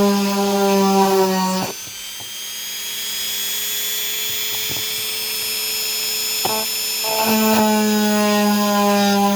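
Handheld rotary tool with a diamond bit drilling through a citrine crystal, a steady high-pitched whine with a loud humming grinding tone. About a second and a half in the grinding tone drops away, leaving a quieter motor whine, and it comes back loud a couple of seconds before the end.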